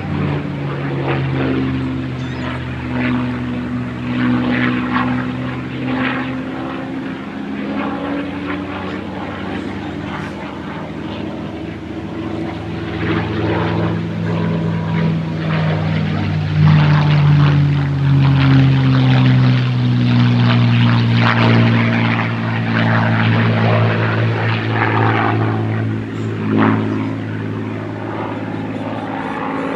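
P-51 Mustang's Merlin V12 engine and propeller droning in flight, the pitch sliding up and down as it manoeuvres. It grows loudest about halfway through as it passes, then drops in pitch and eases off.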